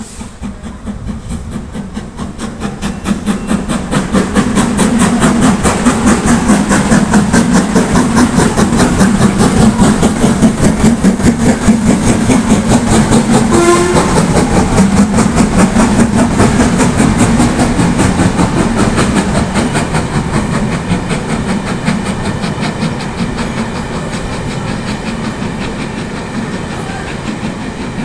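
LMS Stanier Class 5 4-6-0 steam locomotive running through at speed, its rapid exhaust beats and wheels on the rails building to a loud peak as it passes. The rhythmic clatter of its coaches follows and slowly fades.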